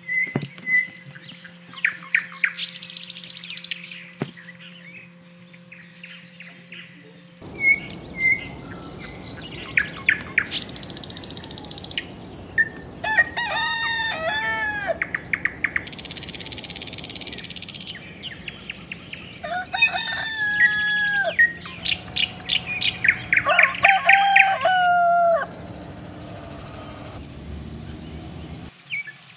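Chickens calling and small birds chirping around an outdoor cooking spot, with the sound breaking off abruptly at several edits. Rapid clicks and rustling come early on, and near the end there is a steady sizzle of coated snail pieces frying in oil.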